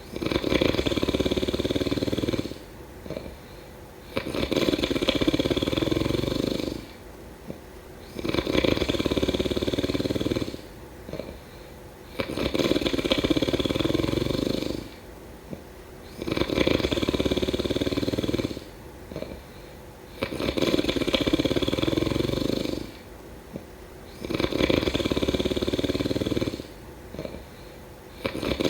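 A person snoring in a steady rhythm: about seven long, low, rasping snores, each roughly two and a half seconds, one every four seconds, with quieter breathing between them.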